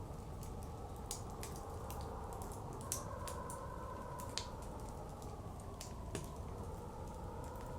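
Wood fire crackling, with irregular sharp pops and snaps, the loudest about three, four and six seconds in, over a steady rush of blizzard wind.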